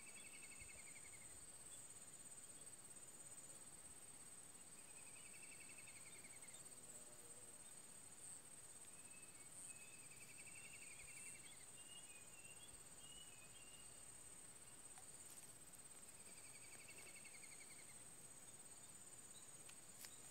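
Faint insect chorus: a steady high-pitched insect drone, with a short buzzy trill that comes four times, about every five or six seconds.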